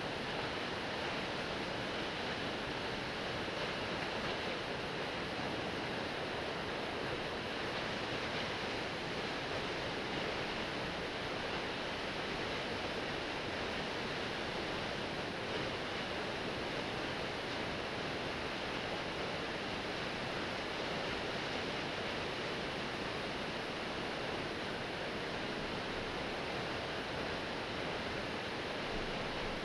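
Shiramizu Falls, a 72 m straight-drop waterfall, plunging: a steady, even rushing roar of falling water.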